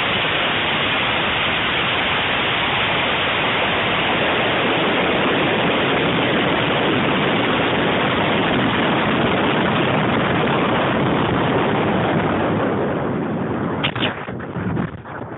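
Steady loud rushing roar of air streaming past a high-power model rocket climbing under and after its Cesaroni motor, heard through the onboard camera's microphone. About 14 seconds in it weakens and breaks into uneven gusts of wind noise.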